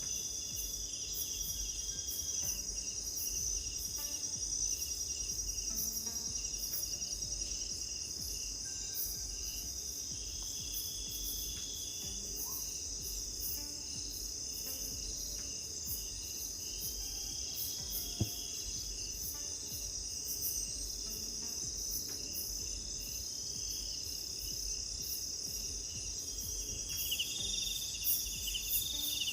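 Night chorus of crickets and other insects: a steady, high-pitched, rapidly pulsing trill, with a fainter short call recurring every few seconds.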